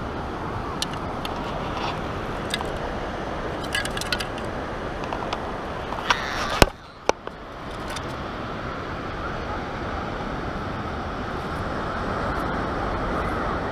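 Steady rushing noise of wind and surf, with scattered clicks and rattles from a metal sand scoop digging wet beach sand. A single sharp knock about halfway through, followed by a brief dip in the noise.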